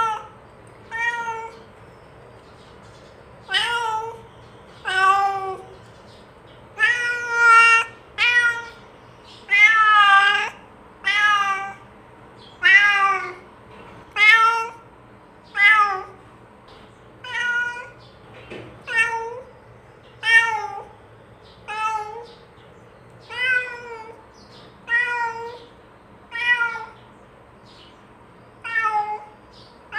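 Domestic cat meowing over and over: about twenty separate meows, a second or so apart, many rising and then falling in pitch.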